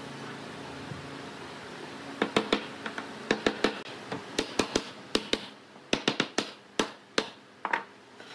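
Wooden mallet knocking a pine top rail down onto the frame's uprights to seat the joints: about twenty sharp knocks in quick runs of two or three, starting about two seconds in.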